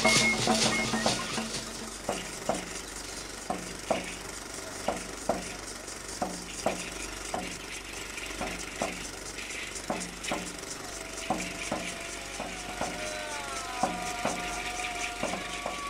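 Folk percussion: a drum beaten in a steady pattern of paired strokes over the continuous rustling hiss of shaken gourd rattles. About 13 seconds in, a long, falling vocal cry joins in.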